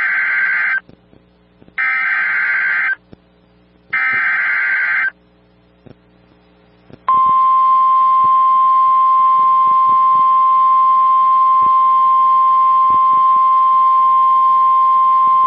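Emergency alert tones: three short bursts of buzzy warbling data sound (the SAME digital header) about a second apart, then, a couple of seconds later, a single steady high-pitched warning alarm tone. They signal the start of a severe thunderstorm warning broadcast.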